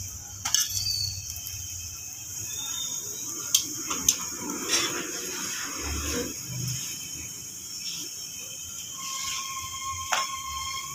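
Cooking handling sounds at a griddle making roti: a few sharp clicks and knocks of metal tongs and utensils against the pan, and a rustle of dough being handled, over a steady chirr of crickets. A thin steady tone comes in near the end.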